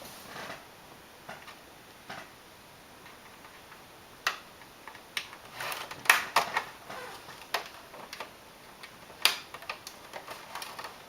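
Scattered sharp plastic clicks and snaps as the retaining tabs of an Xbox 360's casing are pried and pushed loose with a small tool. The loudest clicks come about six and nine seconds in.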